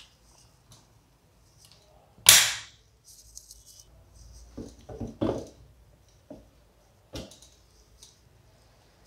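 Stainless-steel mixer-grinder jar being handled and seated on its motor base, with the motor off: a sharp metallic clank about two seconds in, then a quick cluster of knocks and clicks a few seconds later and two lighter knocks near the end.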